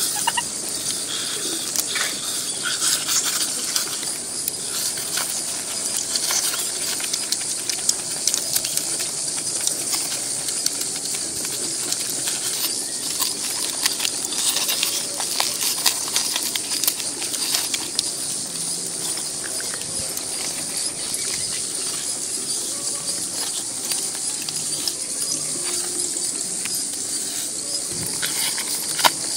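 Steady high-pitched chorus of insects, with frequent small clicks and crackles of food being peeled and eaten by hand.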